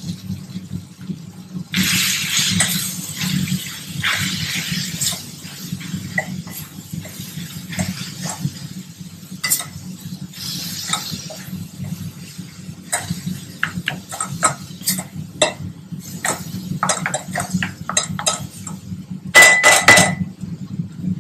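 Metal spoon stirring and scraping a spiced potato sandwich filling in a metal vessel, with scattered clinks, as the sauces and oregano are mixed in. A burst of loud, ringing metal clinks comes near the end, over a steady low hum.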